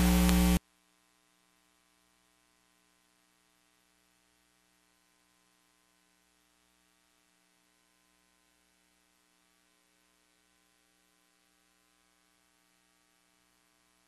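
Loud electrical mains hum on the microphone feed, cutting off abruptly about half a second in. After that there is near silence with only a faint trace of the hum.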